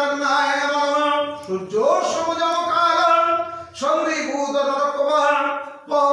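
A male Hindu priest chanting puja mantras in a sing-song voice, holding long notes in three phrases with short breaks about two and four seconds in.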